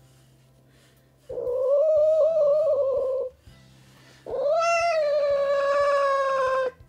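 A cat giving two long, drawn-out yowls, each about two seconds; the second is higher and louder. Quiet background music plays under them.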